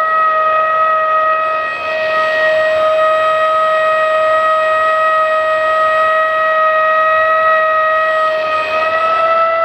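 Homemade 3D-printed siren, its slotted rotor spun by a brushless motor through an electronic speed controller, sounding one steady tone at constant pitch. The pitch rises slightly near the end.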